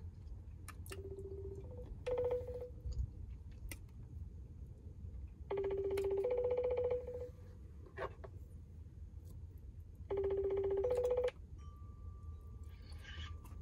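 Smartphone on speaker ringing out on an outgoing call: a two-note ringing tone, low note then higher note, repeated three times about four to five seconds apart. A thin steady beep comes in near the end as the call connects.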